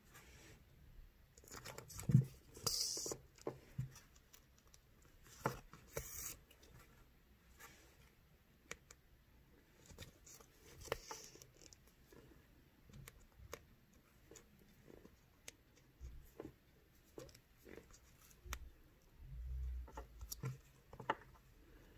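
Close-up hand beadwork: a needle pushed through stiff felt backing and thread drawn through it in a few short rasps, with scattered small clicks of glass beads. A soft knock about two seconds in is the loudest sound.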